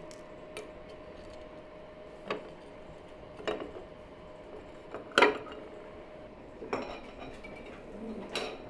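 A knife and china plates clinking as slices of cake are served: about six short separate clinks, the loudest a little past halfway.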